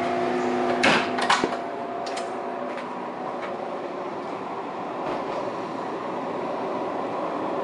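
Steady hum and ventilation noise inside a stationary passenger train carriage. A few loud clunks come about a second in, from the door between the vestibule and the carriage.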